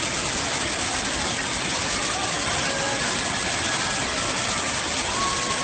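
Waterfall: steady, loud rushing of falling water.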